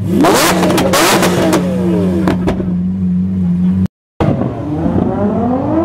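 Lamborghini Aventador V12 revved hard, with sharp cracks among the blips, then falling back to a steady idle. After a brief dropout about four seconds in, the revs climb again near the end.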